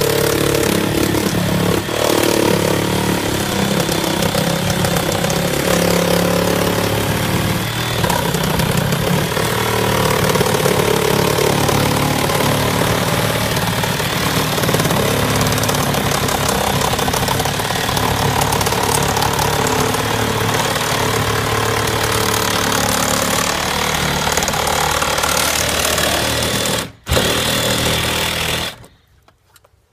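Cordless reciprocating saw running steadily as its blade cuts along the edge of a window frame to free the old window. It stops for an instant about 27 seconds in, runs again briefly, then cuts off near the end.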